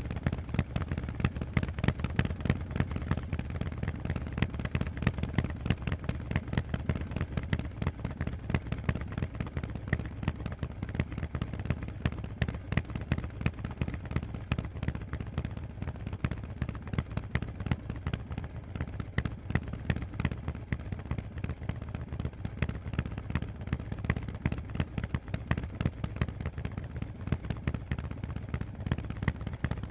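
Harley-Davidson Forty-Eight's air-cooled V-twin running through loud Vance & Hines exhausts under way, a rapid, unbroken stream of exhaust pulses. The engine note shifts about eight seconds in.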